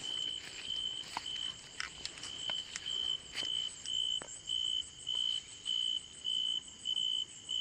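An insect calling at night: short chirps on one high pitch, repeating evenly about twice a second. Scattered soft clicks from footsteps and brushing leaves.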